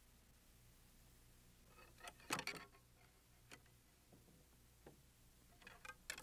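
Near silence with a low steady hum, broken by a short cluster of clicks and knocks about two seconds in and a few more near the end: small handling noises in a vintage car's interior.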